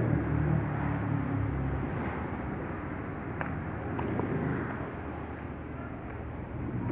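Steady low outdoor background rumble, with two faint clicks about three and a half and four seconds in.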